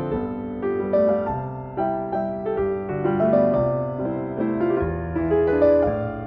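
Background piano music: notes and chords struck about once or twice a second and left to fade.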